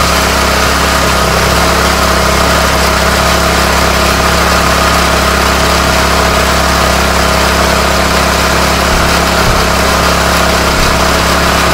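John Deere GX345 lawn tractor's Kawasaki V-twin engine running steadily at an even speed, just after starting up, heard close by.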